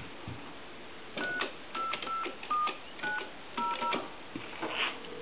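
Touchtone payphone keypad dialing a seven-digit number: seven short DTMF tone pairs in quick succession, each key press with a faint click. A short burst of line noise follows near the end as the call goes through.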